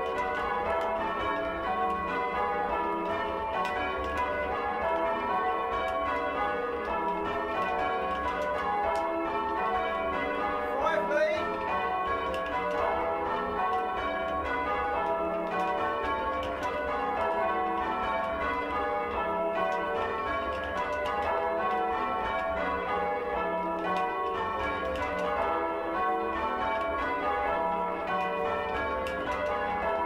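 A 16 cwt ring of six church bells, tenor in E, rung full-circle by hand in rounds and call changes: an even, continuous sequence of bell strikes with their tones ringing on under each other. The tenor is heinously oddstruck, so its strokes fall unevenly.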